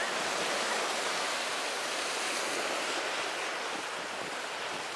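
Surf breaking and washing against a rocky shore in a heavy swell: a steady rush of water.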